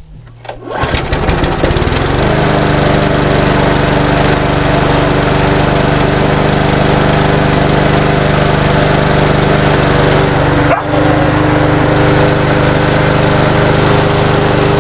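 Briggs & Stratton single-cylinder four-stroke engine on a walk-behind rotary lawnmower pull-started from cold on its first start after a service: a few quick strokes as it catches, then within about two seconds it settles into a loud, steady run. Near eleven seconds in the sound dips for an instant before running on evenly.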